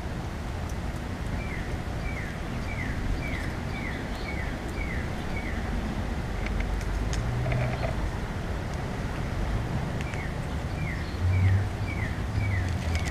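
A bird singing two runs of clear, falling whistled notes, about two a second and eight or nine to a run, the second run starting about ten seconds in. Under it is a steady low outdoor rumble that swells briefly near the end.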